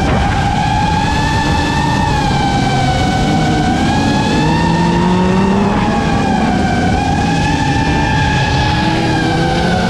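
An FPV quadcopter's motors and propellers whine steadily, the pitch wavering up and down with the throttle. Under them, race car engines rev, rising and falling in pitch.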